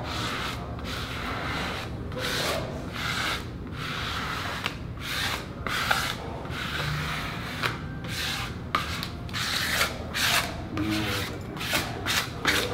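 Hands rubbing a vinyl stencil down onto a concrete floor: a series of dry brushing strokes, about one or two a second, coming quicker near the end.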